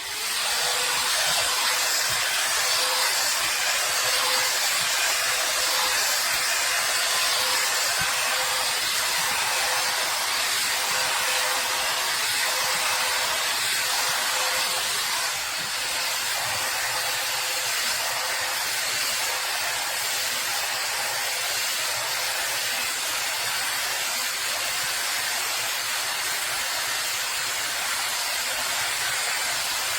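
Hair Trends Nano Titanium travel hot air brush running: a steady rush of blown air with a faint motor whine, switched on just at the start. It dips slightly in level about halfway through.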